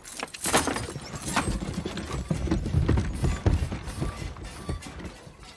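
Horse-drawn wooden wagon pulling away: hooves clip-clopping on dirt, with the wagon's wheels and body rattling and knocking.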